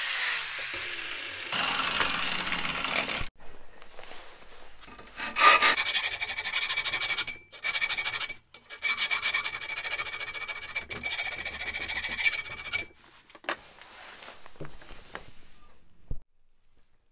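An angle grinder winds down as it fades out, then a hand file scrapes back and forth over a metal piece clamped in a vise, in runs of quick strokes with a thin metallic ring.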